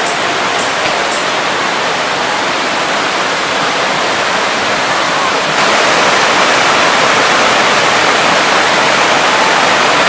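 Waterfall: a steady rush of falling water that gets louder and brighter a little past halfway.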